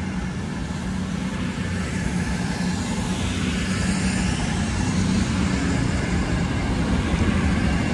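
Avanti West Coast Class 221 Super Voyager diesel multiple unit running through the station: a steady drone from its underfloor diesel engines over wheel and rail noise, slowly getting a little louder.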